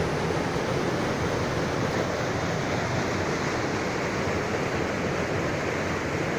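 Small waterfall and rapids of a rocky river, water rushing steadily over stones into a pool.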